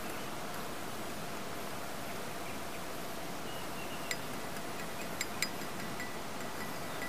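Steady background hiss with a faint hum, and three light clicks, one about four seconds in and two in quick succession a second later, as a plastic spoon taps against a glass beaker.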